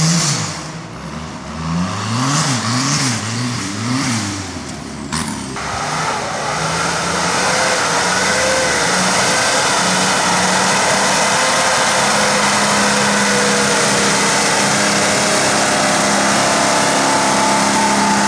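Off-road buggy engine revving up and down rapidly several times as it climbs. About five seconds in there is a sudden cut to a 4x4 SUV's engine running steadily under load on the climb.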